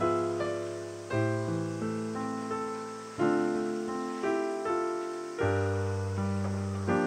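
Solo piano music: chords and single notes struck and left to fade, with a deep bass note about every two seconds.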